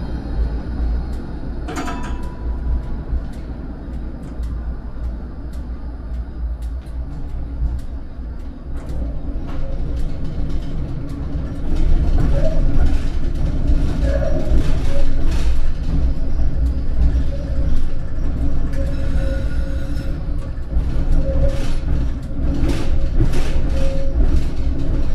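Škoda Vario LF2+ tram running along the track, a steady low rumble with a sharp click about two seconds in. It grows louder from about twelve seconds in, with repeated short knocks and tones over the rumble.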